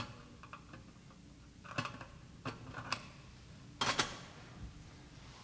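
Small metal clicks and clinks as the luna holding the host is fitted into a gilt monstrance, about half a dozen irregular clicks with a louder pair close together about four seconds in.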